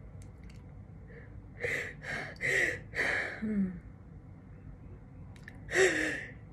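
A woman's short, breathy gasps: four in quick succession about one and a half seconds in, and another near the end, as a sneeze builds.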